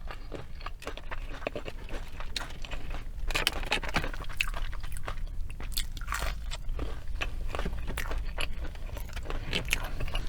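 A person chewing crunchy fast food with their mouth close to the microphone: irregular crunching and wet mouth clicks, with no steady rhythm.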